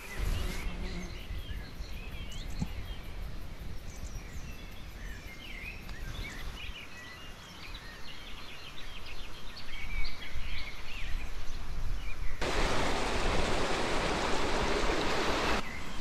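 Outdoor bush ambience: scattered bird chirps over a low rumble. About twelve seconds in, a dense steady rushing noise cuts in for about three seconds, then stops abruptly.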